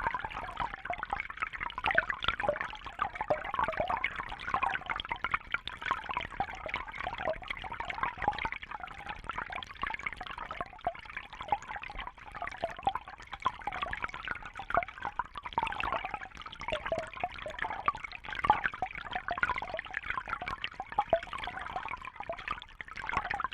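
Small water fountain running: a steady trickle and splash of falling water with many small irregular drips and splashes.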